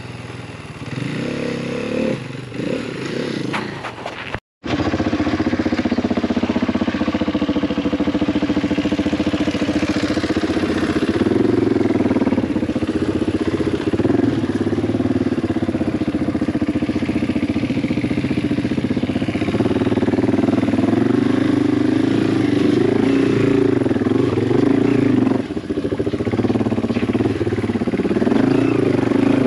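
Yamaha TW200's single-cylinder four-stroke engine running close up, its pitch rising and falling with the throttle during slow off-road riding. The sound cuts out for a moment about four and a half seconds in, then comes back louder and steadier.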